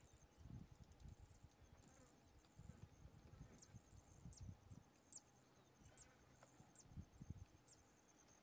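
Faint insects in the Serengeti: a steady, high, pulsing trill. From about three and a half seconds in it is joined by short high chirps that drop in pitch, about once a second, over faint low rumbling.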